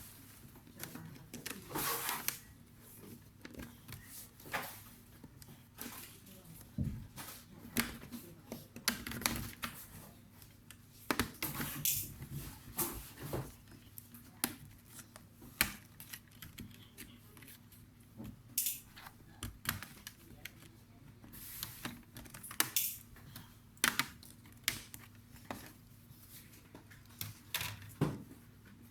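Irregular clicks, taps and light clatter of small hand tools, screws and plastic laptop parts being handled during a laptop RAM upgrade, over a faint steady hum.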